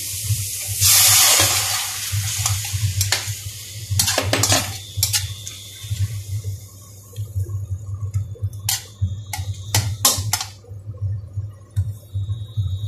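Liquid poured from a bowl into a hot stainless-steel wok, hissing loudly for under a second. Then a metal ladle scrapes and knocks against the wok as it stirs sliced mushrooms, over a low steady hum.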